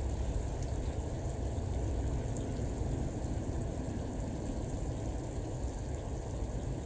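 Steady low rumble of an ATR 72's two turboprop engines running at taxi power.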